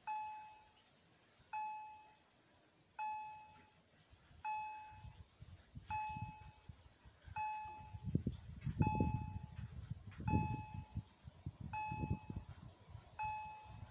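Level-crossing warning bell striking a single ding about every one and a half seconds, each ring fading out, signalling the crossing closing for an approaching train. A low, uneven rumble comes in about a third of the way through.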